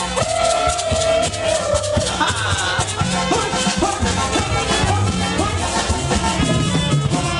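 Festive dance music with a steady bass beat, a melody line and shaken rattle percussion.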